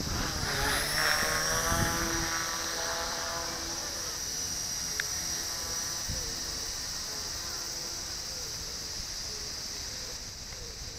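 Blade Nano CP X micro RC helicopter's electric motors and rotors giving a high whine as it flies. It is loudest in the first couple of seconds, with its pitch sweeping downward as it passes, then it grows fainter.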